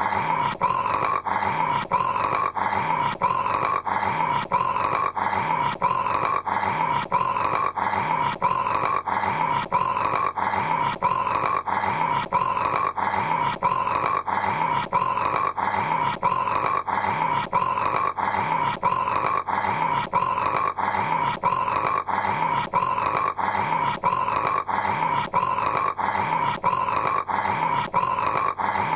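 A man snoring with a rasping, growl-like sound, repeated over and over at an even pace of about one a second with no breathing pauses.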